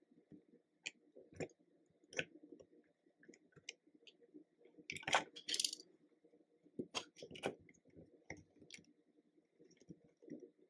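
Small plastic toy construction vehicles handled on a tabletop: scattered light clicks and taps, with a louder, longer clatter about five seconds in.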